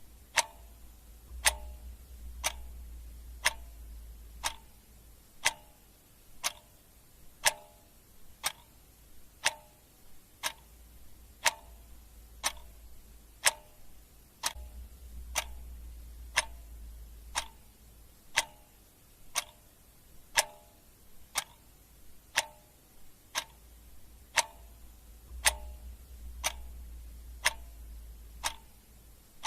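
Clock ticking steadily, one sharp tick about every second, each with a short ringing tone. A faint low hum comes and goes underneath.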